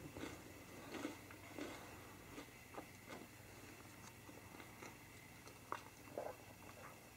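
Red squirrel gnawing a pine cone, stripping its scales: faint, irregular crunching clicks, one or two a second.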